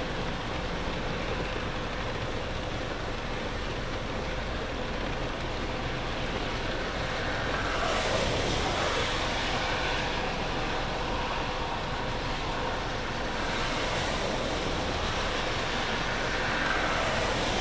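Steady roar of jet airliner engines, swelling a little about eight seconds in and again near fourteen seconds, with a faint steady whine underneath.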